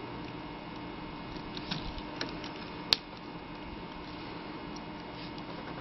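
A few faint clicks of plastic pony beads knocking together as fishing line is threaded through them, with one sharper click about three seconds in, over a steady low hum.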